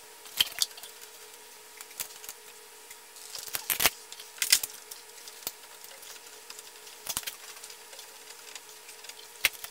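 Hand tools clicking and clinking against a metal oil cooler line fitting as a new fitting is put on and tightened: irregular short, sharp knocks, several close together about three and a half to four and a half seconds in, over a faint steady hum.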